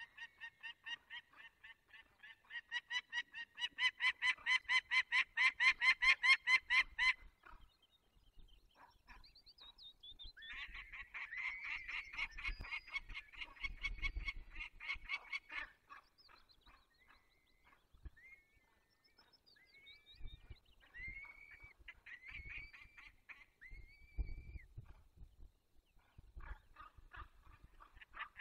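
Peregrine falcons calling: a fast run of harsh, repeated notes at about five a second, held for several seconds, then a second run, then a few separate single calls.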